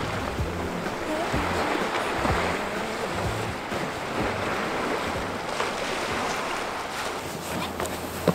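Small waves washing against a rocky shore, with wind buffeting the microphone. A few light clicks and knocks come toward the end.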